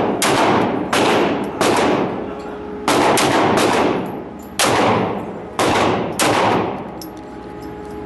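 About eight gunshots fired at an uneven pace, some in quick pairs, each followed by a long echoing decay in an indoor shooting range.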